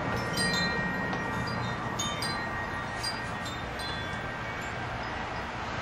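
Wind chimes ringing in a scattered, irregular run of high, clear notes over a steady low background noise.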